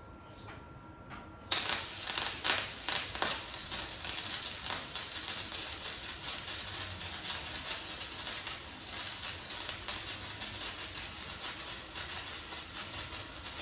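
Electric arc welding with a small Chicago Electric welder: the arc strikes suddenly about a second and a half in, sputters with sharp cracks for a couple of seconds, then settles into a continuous crackling hiss.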